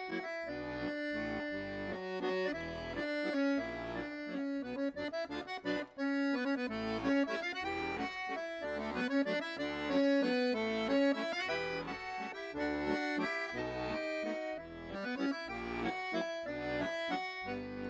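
Accordion music: a tune with melody over chords, its notes changing quickly.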